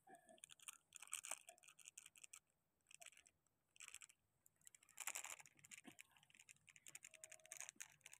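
Near silence, with faint scattered clicks and a few short scratchy rustles.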